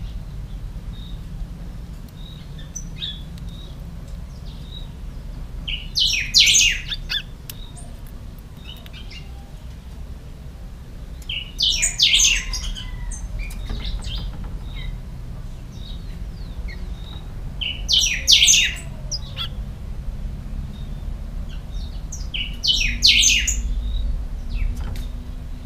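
Caged picahueso singing short, loud phrases about every six seconds, four in all, with faint chirps in between.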